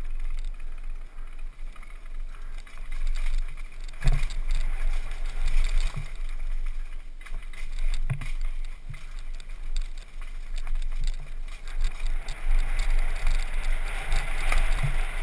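Downhill mountain bike descending a dirt and rock trail at speed: wind buffeting the microphone, a steady rush of tyre and riding noise, and a few sharp knocks as the bike hits bumps and rocks.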